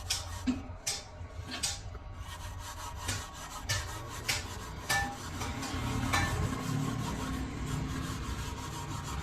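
Metal parts being worked by hand: irregular sharp metal clinks, some ringing briefly, mixed with scraping, over a steady low machine hum.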